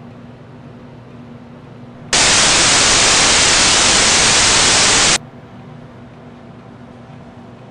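Loud TV-style white-noise static that switches on abruptly about two seconds in, holds steady for about three seconds, and cuts off suddenly. Before and after it there is only quiet room tone with a faint hum.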